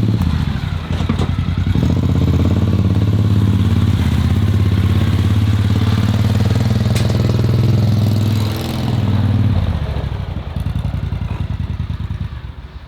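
An engine running steadily with a low, even pulsing, then dropping off about ten seconds in and fading away.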